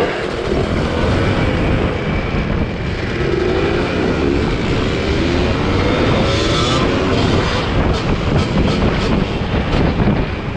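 Motorcycle engines running and revving, their pitch rising and falling through the middle, over a steady rush of noise.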